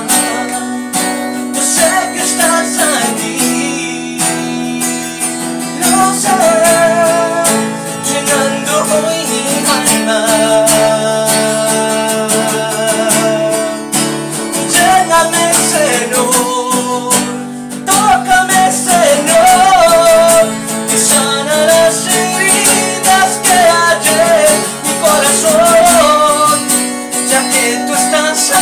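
Acoustic guitar strummed steadily under a man's voice singing a Spanish worship song in long, held notes.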